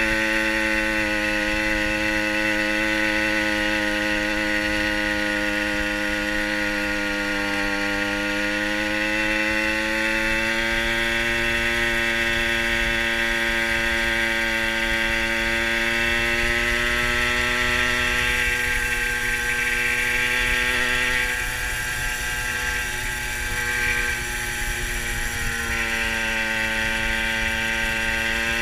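A Fantic TI moped's small two-stroke engine running at a steady cruise, its pitch sagging slightly and recovering. It drops in level for a few seconds about two-thirds of the way through, then picks up again. Wind rumbles on the microphone underneath.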